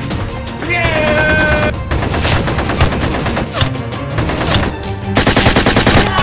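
Rapid machine-gun-style gunfire sound effects standing in for Nerf blaster shots, over background music. The shots come thickest near the end, in a fast continuous burst.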